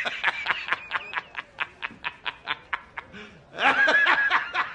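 The J. Jonah Jameson laughing meme: a man's rapid, hearty laugh in short bursts about five a second, breaking into a longer high-pitched laugh near the end.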